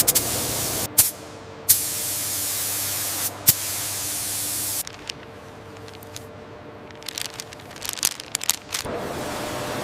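Loud hissing spray in stretches that start and stop abruptly, broken by sharp clicks; it drops away about five seconds in, and a cluster of rapid clicks follows near the end.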